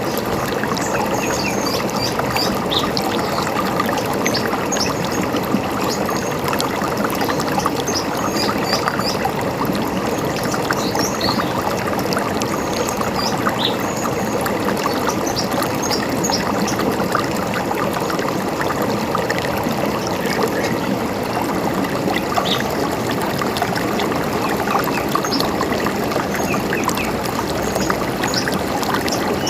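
River water running and trickling steadily, with small birds chirping over it, most often in the first half.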